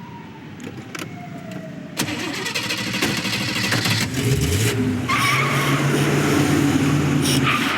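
A car engine starting and then running steadily, getting louder, after a long falling tone and a sharp knock about two seconds in.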